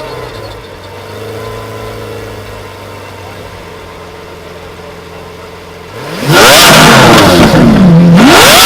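Supercar engine idling steadily. About six seconds in it is revved hard: the pitch climbs, drops back, then climbs again near the end. The revs are far louder than the idle.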